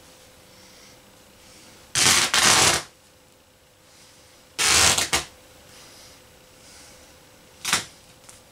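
Fabric seams of a large plush stuffed dog tearing by hand, in three loud ripping bursts: one about two seconds in lasting nearly a second, a shorter one about halfway, and a brief one near the end.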